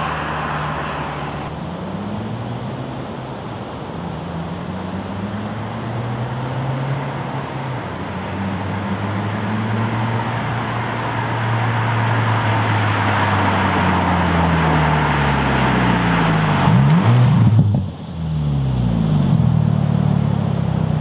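2018 Subaru WRX's turbocharged flat-four through a Greddy GPP RS cat-back exhaust, accelerating up through the gears. Its pitch climbs and drops with each shift, and it grows louder as the car comes closer. There is a sudden brief dip in the sound about 18 seconds in, then it is loud again with rising revs.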